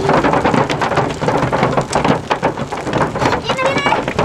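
Hailstones falling hard, a loud, steady patter of many small impacts.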